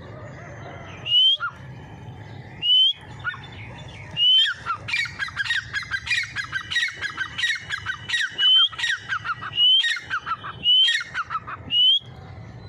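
Grey francolin calling: loud, short, rising whistled notes about every second and a half, with a fast run of shorter falling notes between them from about four seconds in until near the end.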